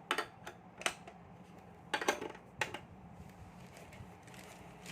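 Small hard plastic toy parts clicking and knocking together as they are handled and fitted, a few separate sharp clicks.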